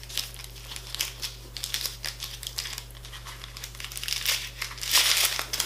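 Paper wrapping around a bar of soap crinkling and rustling as it is unwrapped by hand, in quick irregular crackles that get louder near the end.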